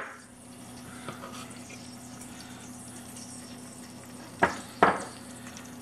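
A metal spoon taps twice on a stainless steel saucepan, about half a second apart, knocking off nut butter, each tap with a short ring. A faint steady hiss from the pan on the heat sits underneath.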